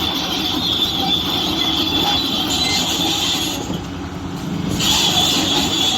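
Heavy quarry earthmoving machinery running, a diesel rumble under a steady high-pitched squeal that drops out for about a second midway and then returns.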